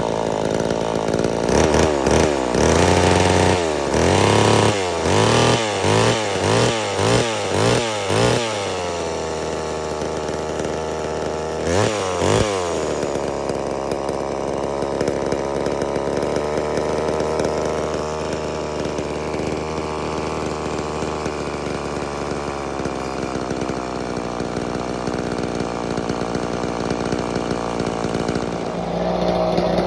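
Homelite Super Mini two-stroke chainsaw, its carburettor freshly rebuilt and tuned. The throttle is blipped in a quick series of revs over the first eight seconds and once more about twelve seconds in. Otherwise the saw runs steadily.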